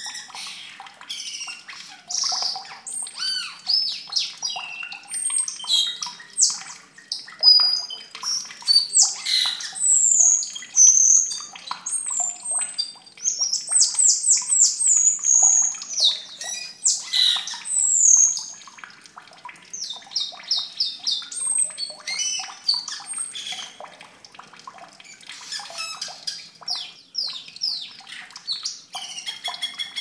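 Asian glossy starling calls: a busy, unbroken stream of sharp whistles, chirps and squawky notes, with sweeping whistles and quick rattling runs of repeated notes, thickest around the middle and a little sparser after it.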